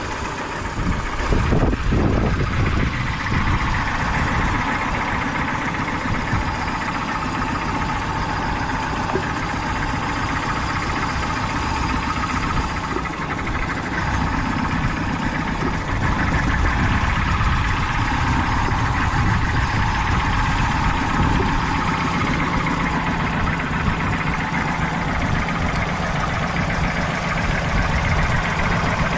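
Peugeot 208 engine idling steadily while misfiring on one cylinder.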